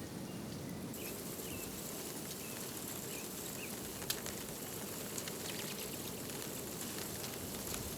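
Steady rain falling, with scattered sharp drop ticks and a few short high chirps in the first few seconds.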